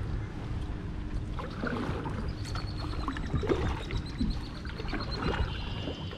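Kayak paddling: a double-bladed paddle dipping into shallow water stroke after stroke, with soft irregular splashes and drips.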